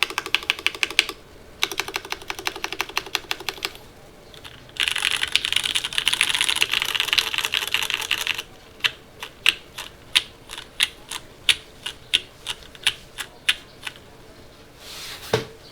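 Mechanical keyboard with lubed Cherry MX Black linear switches on an aluminium plate, O-ring mounted with no foam, and GMK keycaps, being typed on. It starts with bursts of fast typing, runs into a long dense flurry of keystrokes, then slows to single key presses about two a second.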